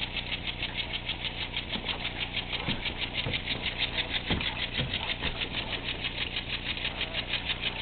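Small model steam engine running steadily on steam from a Stuart 504 boiler, with a rapid, even beat, its pump working alongside it.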